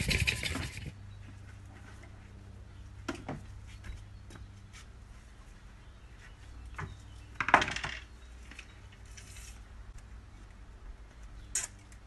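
Hand saw cutting a wooden batten in a mitre guide with quick rasping strokes that stop about a second in. Then scattered light knocks and clatter of wood and tools being handled, the loudest near the middle, over a faint steady hum.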